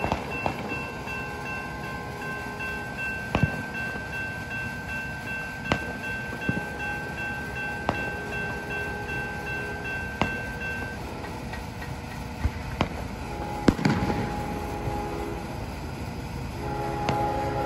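Horn of an approaching CSX freight locomotive sounding for a grade crossing, heard faintly at first, with stronger blasts about 14 and 17 seconds in. Under it a steady high tone stops about two-thirds of the way through, and sharp clicks come about every two seconds.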